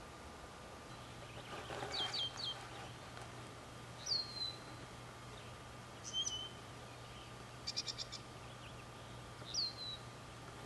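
Small birds calling in woodland: a few short, high whistles that slur downward, spaced a couple of seconds apart, and a quick high trill just before eight seconds. About two seconds in comes the loudest sound, a rough burst with three quick high notes.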